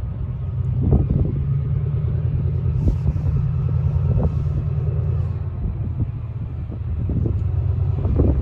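Locomotive hauling a nuclear flask train, a steady low rumble with a few short knocks.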